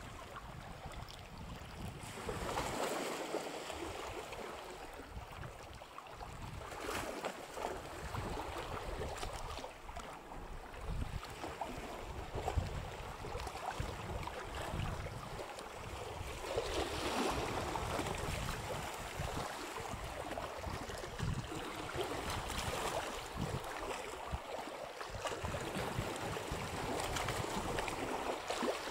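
Wind blowing across the microphone, an uneven low buffeting with gusts that swell and fade a few times.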